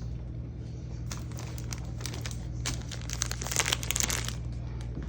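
Plastic packaging crinkling and rustling as it is handled, in a run of quick crackles that grows busiest and loudest about three to four seconds in, over a steady low hum.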